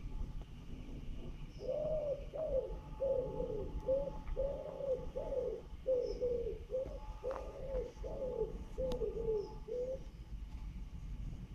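A pigeon cooing in a run of low coos, about three repeating phrases of several notes each, starting a second or two in and stopping near the end.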